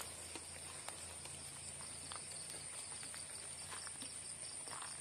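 Night insect chorus: a steady high-pitched buzz with a fast pulsing chirp beneath it. Scattered light ticks and footsteps on wet ground come through it.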